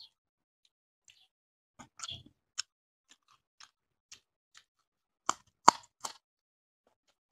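Close-miked eating by mouth: scattered wet chewing and lip-smacking clicks with silence between, and a few louder crisp bites about five to six seconds in, as a raw green chili and mouthfuls of fish curry and rice are bitten and chewed.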